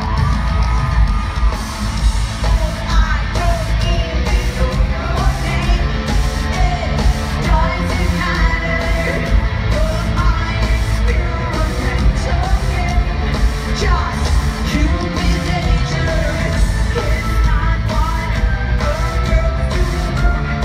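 Live pop concert music over an arena sound system: a band with a heavy, steady beat and a woman singing, with the audience yelling.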